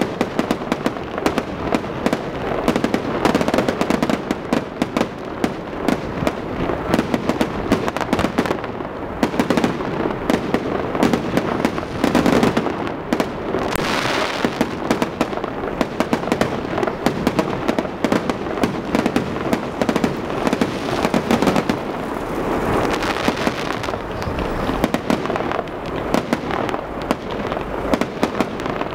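Fireworks display: a continuous rapid barrage of shell bursts and bangs. There are two swells of brighter, hissier noise, about halfway through and again about three-quarters through.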